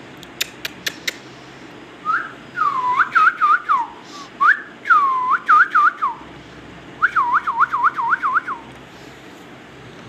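Indian ringneck parakeet whistling: three runs of quick up-and-down swooping whistles, the last a fast run of about six swoops, after a few sharp clicks in the first second.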